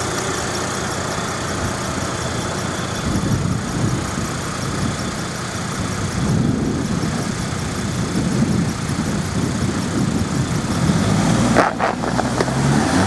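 Four-wheel-drive vehicle's engine running steadily, with a brief break about twelve seconds in, then the engine rising in pitch as it revs near the end.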